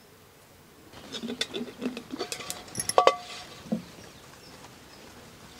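Earthenware lids knocking and scraping against clay pots as they are handled: a scatter of light clinks and taps, with one louder ringing clink about three seconds in.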